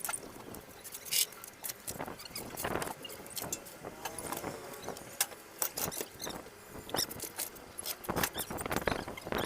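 Irregular metallic clicks and knocks, with faint squeaks, from hand tools and metal parts being worked during removal of a truck gearbox.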